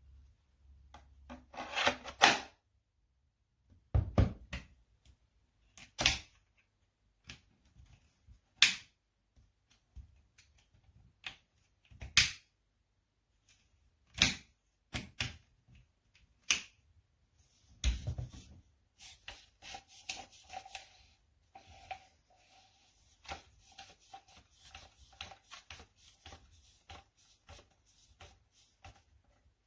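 Sharp hard clicks and knocks, one every two seconds or so, then from about 19 seconds in a quicker run of lighter clicks. It sounds like hard objects being handled, with no motor running.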